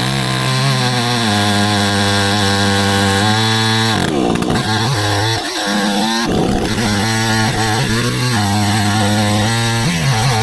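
Proyama gas chainsaw running at a steady high speed under load in an Alaskan chainsaw mill, ripping a pine log lengthwise into a slab. About four seconds in, and again about six seconds in, its pitch dips and wavers briefly before steadying.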